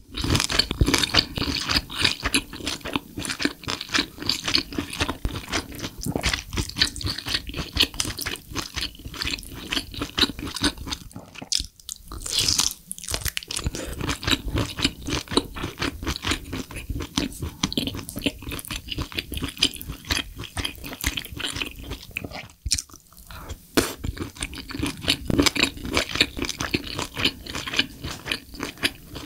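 Close-miked mouth sounds of chewing braised lobster tail meat in spicy sauce: a dense run of small clicks, pausing briefly twice.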